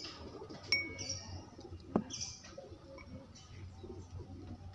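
Domestic pigeons cooing, with short high chirps repeating, a light metallic clink just under a second in and a sharp click about two seconds in.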